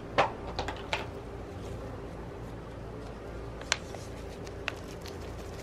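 A few short taps and rustles of hands working a plant and potting soil into a planter, using a small plastic nursery pot, three close together at the start and a sharp one about two thirds of the way through, over a low steady hum.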